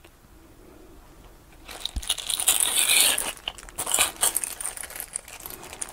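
Clear plastic bag of multimeter test leads crinkling and crackling as it is lifted out of the case and handled, starting about two seconds in.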